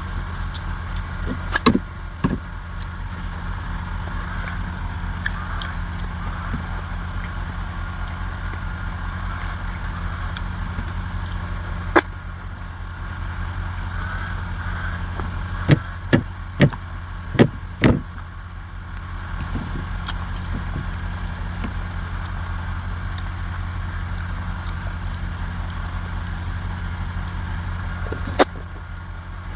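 A steady low engine-like hum, with several sharp clicks and knocks, including a quick run of four about halfway through.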